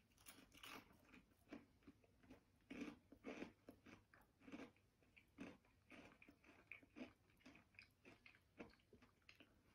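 A person chewing a mouthful of crispy air-fried battered haddock fillet: faint, irregular crunches of the batter throughout.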